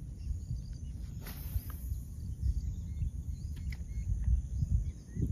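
Outdoor ambience at a pond: an uneven low rumble of wind on the microphone, scattered short bird chirps, and a brief hiss about a second in.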